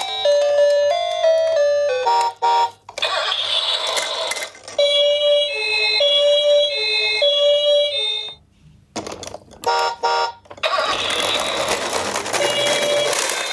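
Battery-powered toy ambulance minicars sounding their electronic sirens: a short electronic jingle at first, then a two-tone siren alternating between two pitches, broken by brief beeps and one short dropout about halfway.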